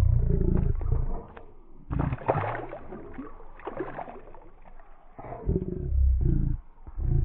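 Hands swishing and splashing in the water beside an inflatable kayak, in a few bursts from about two seconds in. A low rumble on the microphone dominates the first second and comes back near the end.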